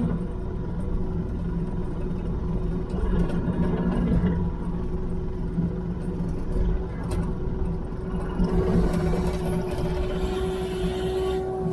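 Diesel engine of a New Holland machine running steadily under a ride-along, a constant drone with a tone that grows stronger near the end.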